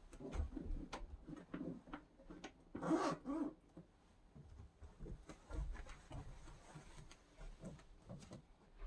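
Faint clicks, taps and rustles of household items being handled and moved, with a brief louder sound about three seconds in.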